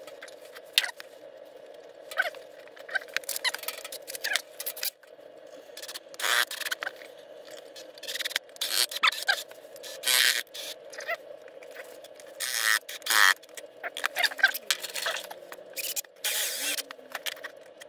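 Workbench handling noise: a string of clicks and knocks with several short scrapes as a metal can and a wooden box are handled and fitted together.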